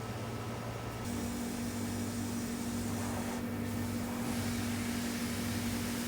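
Shop machinery in a plastics fabrication workshop running steadily, a constant hum that shifts to a slightly louder, higher-pitched hum about a second in.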